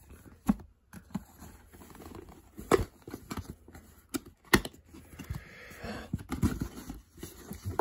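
Cardboard box being handled and opened: scattered sharp knocks and scrapes of the card as its tab is pulled and the lid lifted, then tissue paper rustling about five seconds in.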